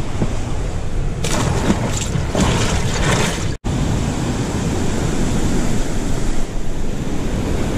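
Wind buffeting the microphone over the wash of small waves running up the sand, with a burst of rustling and scraping about a second in that stops when the sound briefly cuts out at about three and a half seconds.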